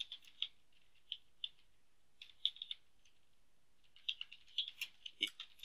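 Computer keyboard keys being typed, individual clicks in short irregular runs with a pause of about a second past the middle.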